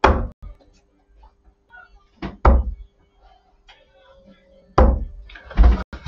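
Several sharp knocks and thuds: one at the start, a double knock about two and a half seconds in, and two more near the end, over a faint steady hum.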